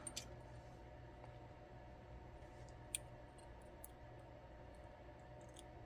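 Near silence with a few faint small clicks, the sharpest about three seconds in: tools and small parts of a disassembled ASSA Twin 6000 lock being handled.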